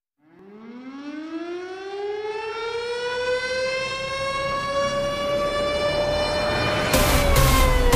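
Air-raid siren winding up, its pitch climbing slowly for several seconds and then starting to fall. Heavy electronic drum beats come in under it about seven seconds in.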